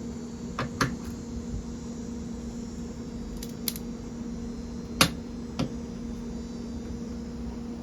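A few sharp clicks and taps from work on a Tesla's door latch and striker, the loudest about five seconds in, over a steady low hum.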